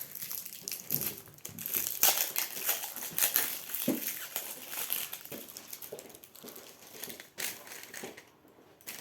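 Plastic packaging crinkling and crackling as a slime pot is handled and unwrapped, a dense run of crackles that thins out to a few near the end.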